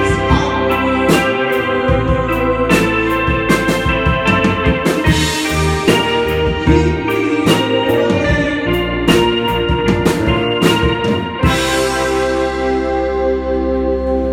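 Live band playing the closing bars of a song: sustained keyboard chords over sharp, frequent hits. About eleven seconds in it lands on a final chord that is held and rings out.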